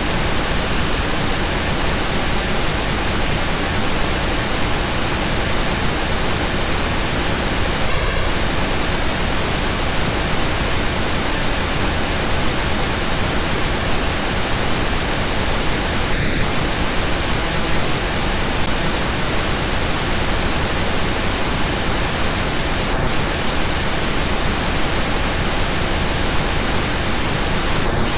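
Steady hiss of pink-type noise, even across the whole range from deep to very high, with faint short high tones coming and going every second or two.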